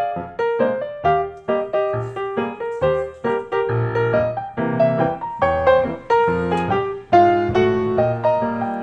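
Background piano music, a quick run of single notes each struck and left to fade.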